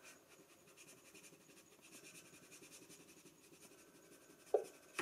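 Plastic applicator card rubbing faintly over a screen-protector film on a touchscreen in many small strokes, pushing an air bubble out toward the edge. A brief louder sound comes near the end.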